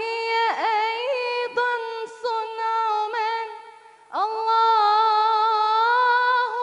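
A woman singing an Islamic religious nasheed unaccompanied, in long held notes with ornamented melismatic runs. She breaks off briefly about three and a half seconds in, then holds one long note with a slight waver.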